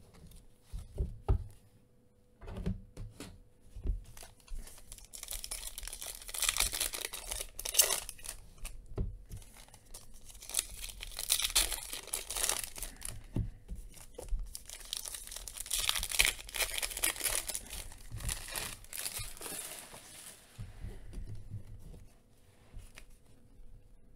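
Foil wrapper of a Panini Phoenix football card pack being torn open and crinkled by hand, in three long rustling stretches, with a few light clicks of cards being handled at first.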